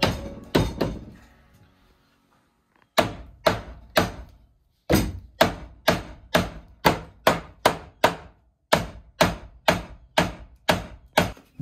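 Hammer striking the bottom of a wooden door jamb to knock an exterior door frame loose. A few blows come, then a pause of about two seconds, then a steady run of about two sharp blows a second. Faint background music fades out in the first second.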